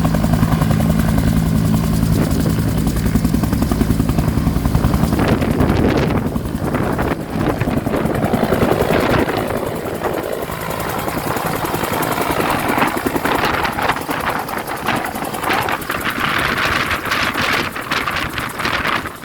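Helicopter taking off, its rotor beating in a steady, loud low pulse. After about six seconds the low beat weakens and gives way to a rougher rushing noise.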